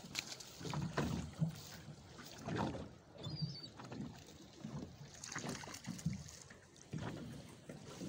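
Water slapping and sloshing against the hull of a small boat in irregular low whooshes, with wind on the microphone. A short high gull call comes about three and a half seconds in.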